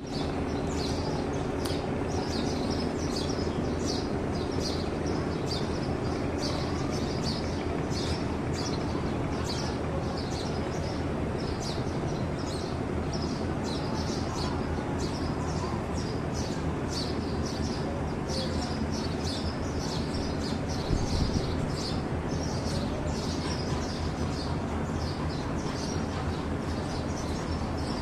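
Many small birds chirping busily and continuously over a steady low background rumble, with a brief low thud about three-quarters of the way through.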